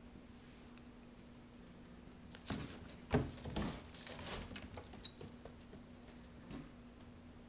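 A cat scrambling against cardboard boxes on a hardwood floor, its collar tag jingling, in a flurry of knocks and scuffs that starts about two and a half seconds in and lasts a couple of seconds.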